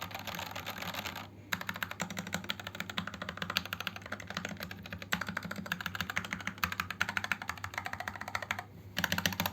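Fast typing on a 60% mechanical keyboard with Gateron Red linear switches and PBT XDA-profile keycaps: a rapid run of key clacks, broken by two short pauses, one just over a second in and one near the end.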